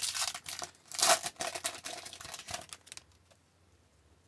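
Foil wrapper of a 2019-20 Upper Deck Series 1 hockey card pack being torn open and crinkled by hand; the crinkling stops about three seconds in.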